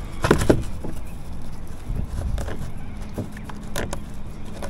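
Scattered knocks and scrapes over a low rumble, from a person shifting about and handling gear in a fishing kayak. Two sharp knocks come just after the start, and a few more follow later.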